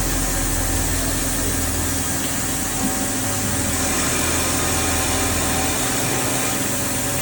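Calpe M 1300 MH wood copy lathe running, a steady machine hum with a few held tones over a continuous hiss.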